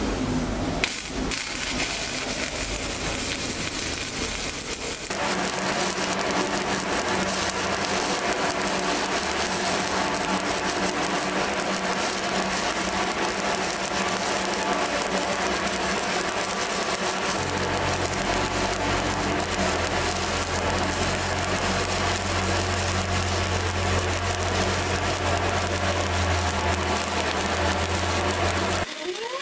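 Stick welding arc on steel, the coated electrode burning with a steady crackling sizzle. It catches about a second in, and a low hum joins about halfway through.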